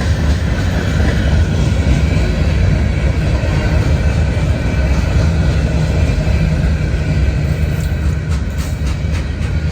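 A freight train rolling past close by: a steady, loud low rumble of the moving cars, with a run of sharp wheel clicks over rail joints starting near the end.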